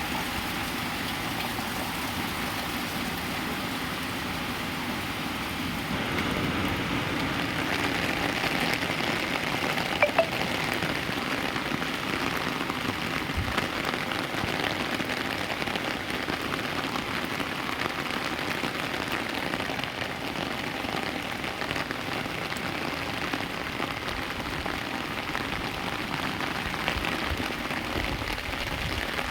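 Steady rain falling and pattering on surfaces, growing a little louder about six seconds in, with one brief sharp knock about ten seconds in.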